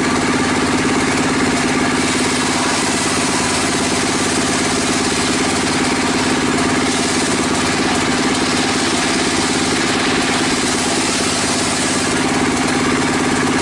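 Homemade sit-down circular saw bench running as a timber board is ripped lengthwise through the blade. The saw's drive motor makes a loud, steady drone with a constant hum, and the level holds even throughout.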